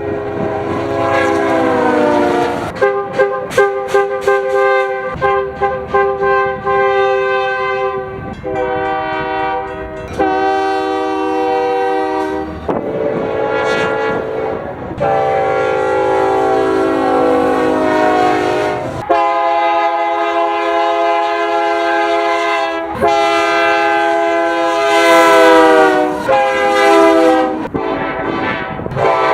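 Locomotive air horns sounding multi-note chords in a string of separate blasts, long ones and a quick run of short toots. The first blast slides down in pitch as the train goes by.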